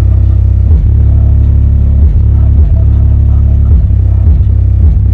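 Car audio subwoofers playing a bass-heavy rap song at full power from a Slapz Audio 8K amplifier, the deep bass notes changing about every half second to second. The bass far outweighs everything else.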